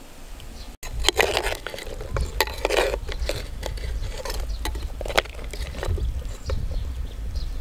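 Clay pot boiling hard over a wood fire: irregular bubbling pops and crackles. After a brief cut-out about a second in, the pops are busiest for the next couple of seconds.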